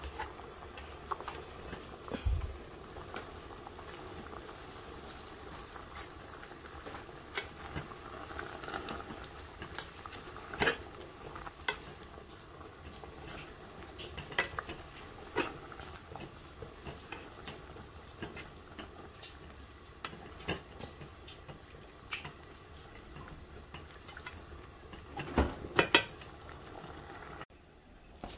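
Wooden chopsticks stirring spinach in a metal pan, knocking and scraping against the pan in irregular clicks, the loudest near the end, over a faint steady sizzle.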